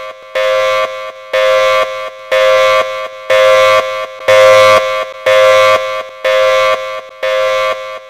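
Federal Signal Thunderbolt rotating outdoor warning siren sounding the pulse signal: its steady tone switched on and off about once a second, here made by cutting the steady tone. It swells louder around the middle as the turning horn faces the listener, then fades as it turns away.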